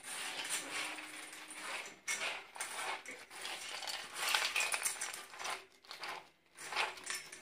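Dry dog kibble rattling and scraping in a stainless steel bowl as it is stirred by hand, in irregular on-and-off bursts.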